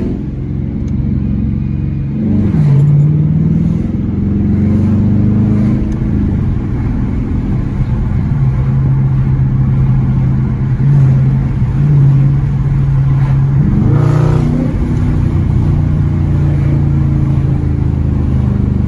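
2020 Dodge Challenger R/T's 5.7-litre HEMI V8 running through an exhaust with the mid mufflers deleted, while driving. The engine note climbs and drops about two or three seconds in and again around fourteen seconds in, and holds a steady pitch in between.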